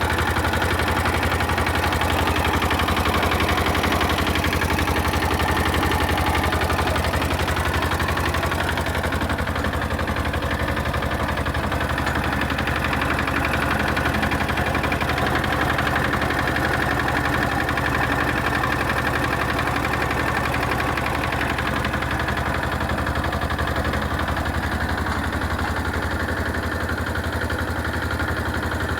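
Agrale M90 single-cylinder diesel engine of an Agrale 4100 tractor running steadily, its rapid, even firing beat continuous throughout.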